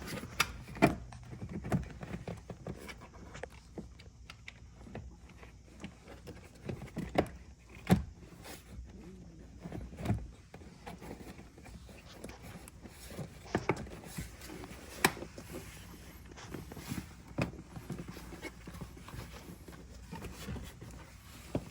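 Scattered clicks, knocks and rustling of hands routing and tucking an LED light strip's wire out of sight along a car's interior trim, with a few louder knocks spread through.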